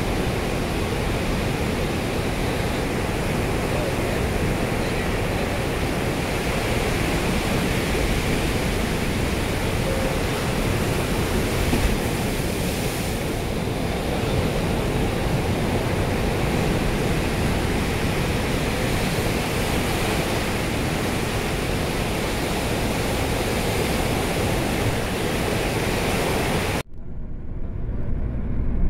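Steady rushing noise of an airplane landing, even throughout. It cuts off suddenly near the end and gives way to a quieter low rumble.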